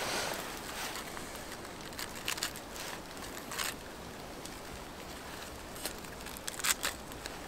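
Crisp lettuce leaves being torn and peeled apart by hand: a handful of short, crunchy snaps over a steady background hiss.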